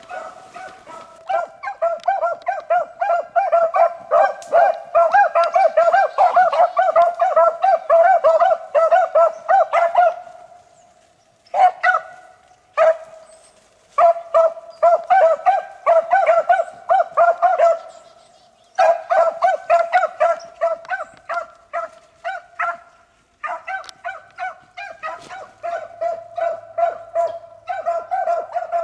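Beagles baying on a rabbit's trail: rapid, continuous barking in long runs, with a few short breaks where the hounds fall quiet before picking it up again.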